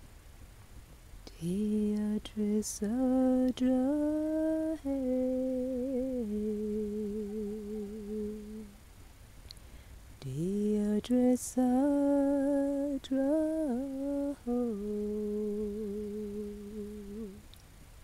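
A voice humming a slow wordless tune in two long phrases, the first ending on a held, wavering note.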